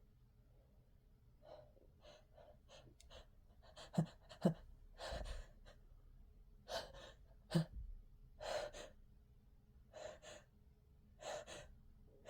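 A person with a head cold and an itchy nose taking short, catching gasps and sniffing breaths as a sneeze builds, with a few sharp clicks among them.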